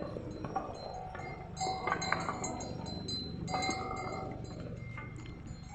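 Bells worn by pack ponies and mules on a mountain trail, jingling and ringing in a few short clusters as the animals walk.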